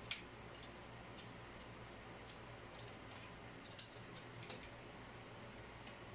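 A few sharp, light clicks and taps of small hard parts being handled, spaced irregularly with the loudest about four seconds in, over a faint steady low hum.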